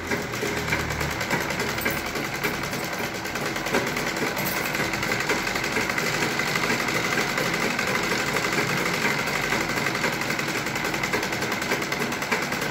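Motorised domestic sewing machine running steadily at speed, its needle stitching fast through fabric as a seam is sewn. It starts right at the beginning and keeps an even rate.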